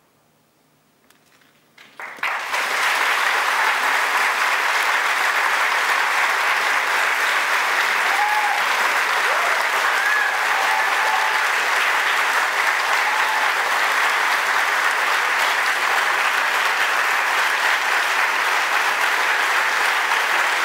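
After about two seconds of near silence, a theatre audience breaks into loud, steady applause at the end of the song.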